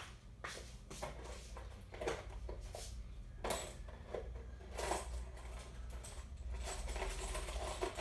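Loose coins clinking and jingling as change is sorted through, with a few sharper metallic clinks that ring briefly.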